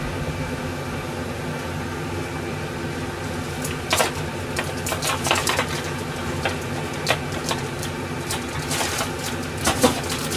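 Pan of nishime (root vegetables in dashi) starting to simmer on a gas stove: a steady low hum with scattered small pops and clicks.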